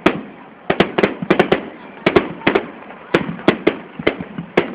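Aerial fireworks going off: a rapid, irregular string of sharp bangs and cracks, coming in clusters of several a second.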